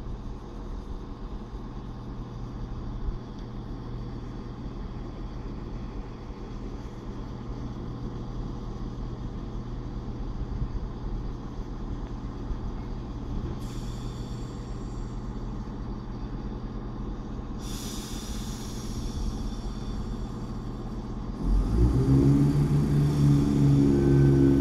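CrossCountry Class 170 Turbostar diesel multiple unit standing at the platform, its underfloor diesel engines idling with a steady hum. Hissing comes in twice in the second half. About three seconds before the end the engines rev up sharply and run loud as power is applied to pull away.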